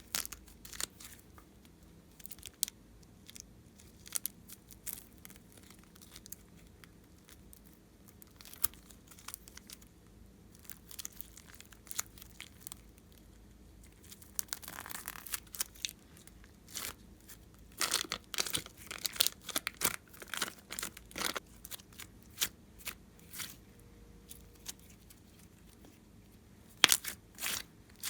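Hands working glossy slime, giving scattered sticky pops and clicks, with a denser run of crackling about two thirds of the way through.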